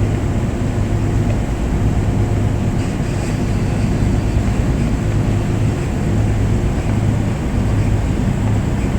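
A boat's engine running steadily, a low hum, with a steady rush of noise over it.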